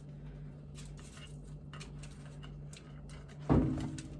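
Light clicks and scrapes of kitchen utensils during food preparation, over a steady low hum. About three and a half seconds in there is one loud thump, with a short ringing tail.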